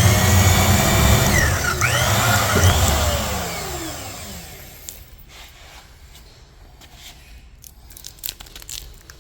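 A power tool's motor running at full speed, its pitch sweeping up and down, then winding down and stopping about four seconds in. Faint clicks and rustling follow.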